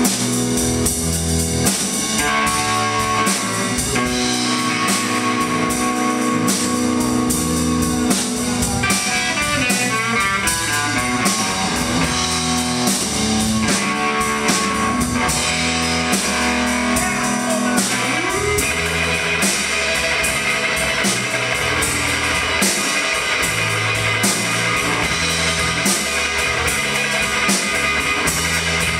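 Live instrumental rock from an electric guitar, electric bass and drum kit playing together, with no vocals. About nine seconds in there is a long downward glide in pitch.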